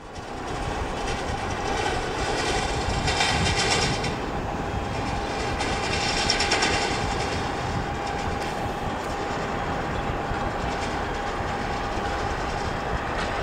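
Boeing 737-300 on final approach, heard from afar: its CFM56-3 jet engines give a steady rumble with a faint whine. The sound fades in at the start, and a higher hiss swells briefly twice.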